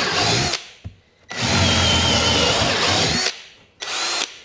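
Ryobi 18V ONE+ cordless drill driver running in three bursts, with a high motor whine: a run into a piece of timber that stops about half a second in, a longer run of about two seconds, and a short spin-up near the end.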